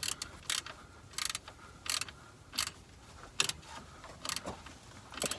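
Ratchet wrench clicking in short strokes, about one every three-quarters of a second, as a bolt is turned.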